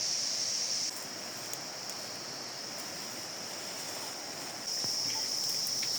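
Insects, such as crickets, keeping up a steady high-pitched chirring over a low background hiss. The chirring breaks off about a second in and starts again near the end.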